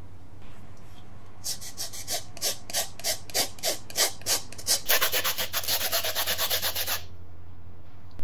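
Lemon being zested on a flat fine-toothed hand grater: rasping strokes, about three a second, quickening to about six a second, then stopping.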